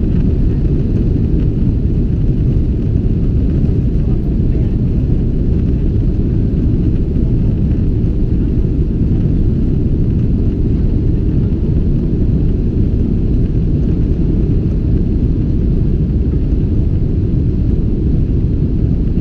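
Steady low rumble inside the cabin of a Boeing 777-300ER taxiing, from its GE90 engines and its wheels rolling on the taxiway.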